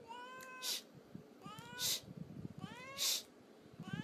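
Domestic cat meowing: four short meows rising in pitch, about one every 1.2 seconds, each followed by a brief hiss-like burst.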